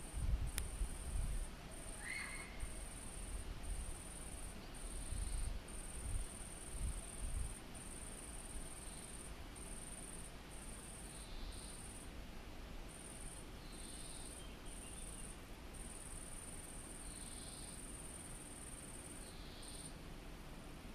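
An insect's high, steady trill, broken by short gaps every second or so. Low rumbles come in the first several seconds, and faint short chirps come every few seconds later on.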